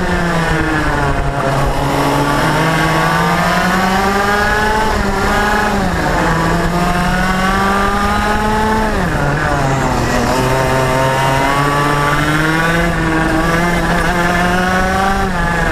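IAME X30 125cc two-stroke single-cylinder kart engine at full throttle, heard onboard. The revs climb steadily along each straight and drop sharply as the driver lifts for a corner, twice mid-way and once more at the end.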